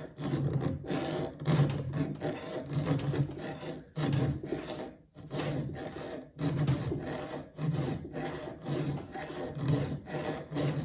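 Flat file rasping across the steel cutter of a saw chain, shaping the tooth's side plate and working corner. Repeated hand strokes, about two a second, with a couple of short pauses.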